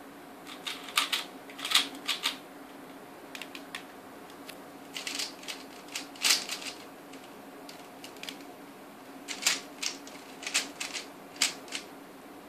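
Plastic 3x3 speed cube being turned in quick runs of clicking face turns as an OLL (orientation of last layer) algorithm is executed. The turns come in four short bursts: the first about a second in, then around 3.5 s, 5–7 s and 9–12 s, with pauses between them.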